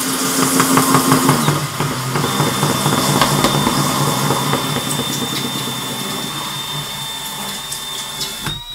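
Cordless drill turning a 3-inch hole saw in reverse through a plastic tote lid: a steady motor whine over the scraping of the saw teeth on the plastic, run in reverse so the saw doesn't grab and crack the lid. The motor slows a little about a second and a half in, and the drill stops just before the end.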